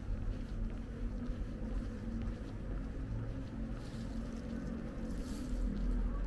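Low steady rumble of distant traffic, with a faint engine hum running under it.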